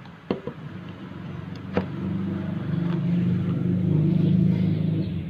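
Two sharp clicks as a mains plug is pushed into a power strip and handled, then a low steady drone that swells over about three seconds and stops abruptly just before the end.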